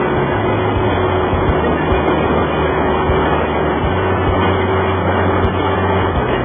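Sportbike riding at steady speed: heavy wind rush over the bike-mounted camera, with the engine's steady drone underneath.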